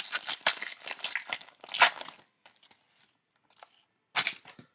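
Foil trading-card pack wrapper being torn open and crinkled: a dense run of crackles for about two seconds, then a few faint ticks and a shorter rustle near the end.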